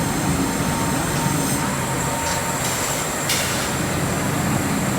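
Cooling pad production line machinery running steadily as kraft paper is fed through the phenolic resin coating and heating machine, with one short sharp click about three seconds in.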